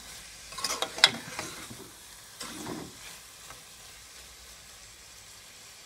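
Spoon stirring and scraping through saltfish and vegetables frying in a metal pot, over a steady sizzle. The loudest scrapes and knocks come about a second in, and it settles to the sizzle in the last few seconds.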